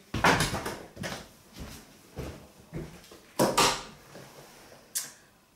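Kitchen clatter: a string of knocks and bangs, as of dishes and cupboard doors being handled, the loudest about three and a half seconds in.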